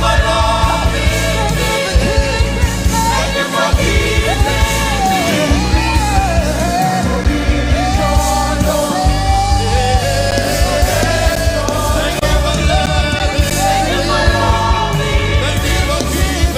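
Live gospel band music with a heavy bass and drums, and a voice singing a wavering, drawn-out melody over it.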